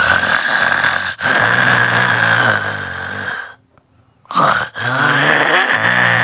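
A person snoring loudly: two long, rasping snores with a low buzz, the second starting after a short pause a little past halfway.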